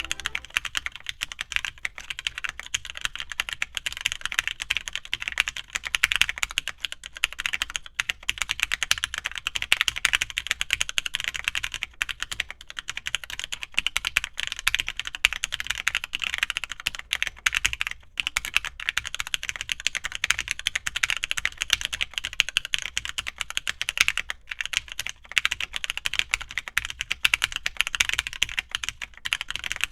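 Steady, fast typing on an FLX Virgo R2 split ergonomic mechanical keyboard with Gateron Milky Yellow linear switches, Mode Obscura keycaps and a carbon fiber plate. Keystrokes come in a dense run of clacks, with a few brief pauses.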